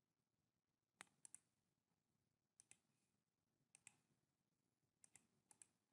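Faint, sharp clicks of a computer mouse and keyboard, coming in pairs and small clusters about a second apart, with near silence between them.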